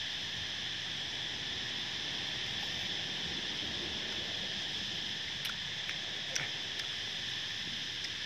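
Steady chorus of insects, a continuous high buzzing drone, with a few faint clicks after about five seconds.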